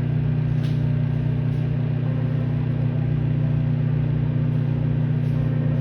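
Microwave oven running: a steady low electrical hum, with a few faint ticks.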